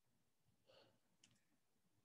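Near silence: room tone, with a faint short rustle well under a second in and two faint clicks in quick succession just after a second in.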